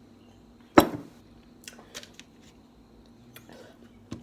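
Tableware handled while eating: one sharp clack about a second in, followed by a few lighter clicks and taps.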